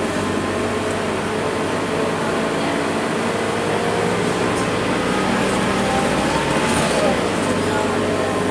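Cabin noise aboard a Scania K230UB city bus under way: the diesel engine running steadily under the road and tyre noise, its pitch shifting briefly about seven seconds in.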